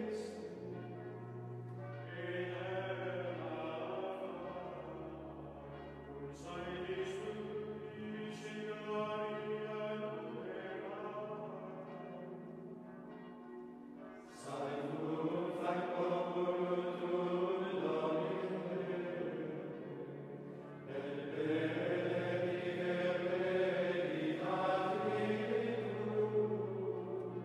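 Gregorian chant sung by Benedictine monks, a choir of men's voices in slow phrases over held low notes, with a fresh phrase starting every several seconds.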